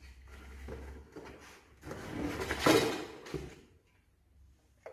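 Rustling and scraping of packaging and cardboard as the mobile's plastic moon-shaped housing is pulled out of its box, with a louder knock or scrape a little under three seconds in.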